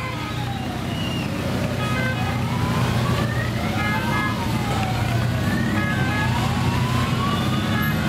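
A siren wailing, rising and falling in slow sweeps of about two seconds each, over the steady low rumble of motorcycle and trike engines riding in a parade.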